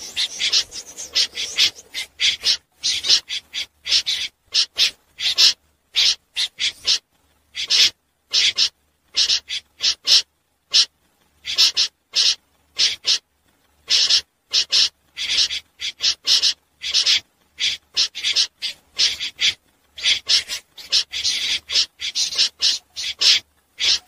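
Snipes calling: short, harsh, high-pitched rasping notes repeated in quick irregular runs with brief gaps between them.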